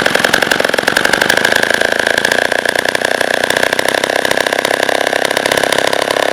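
Vintage Homelite E-Z chainsaw's two-stroke engine running steadily.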